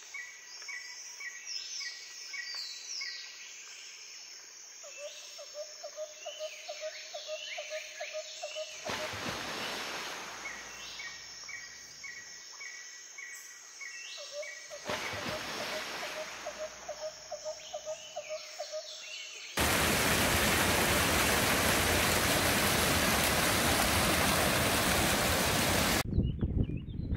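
Birds singing, with two runs of a rapidly repeated low call and two short rushes of noise. About twenty seconds in, the steady, louder rush of a small waterfall splashing down a mossy bank takes over.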